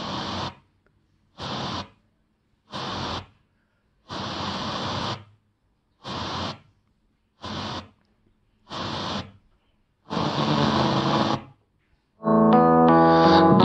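FM radio being tuned station by station: brief snatches of broadcast audio cut off by muted silence between each step, about eight in a row. About 12 seconds in, it settles on a station playing piano music.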